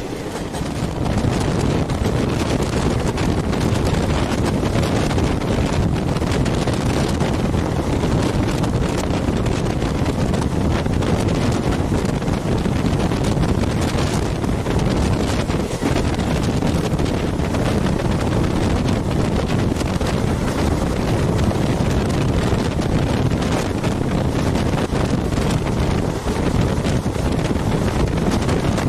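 Strong wind buffeting the microphone held out of the open door of a fast-moving train, a loud steady rush with the train's running noise underneath.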